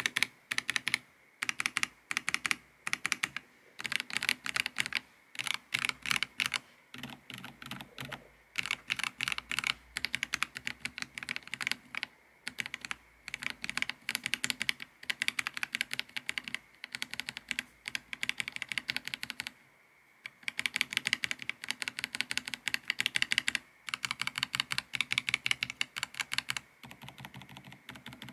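Mechanical keyboard keys on a Varmilo Minilo75 fitted with Varmilo Prestige Light and Prestige Red switches being pressed rapidly in bursts of about a second with short pauses between. The clacks are brisker than the board's silent switches.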